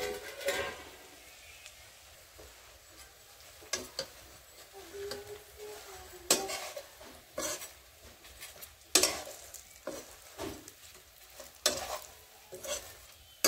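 Spinach pakoras frying with a faint sizzle in a little oil in a steel kadhai, as a metal slotted spoon scrapes and clinks against the pan about once a second while turning them.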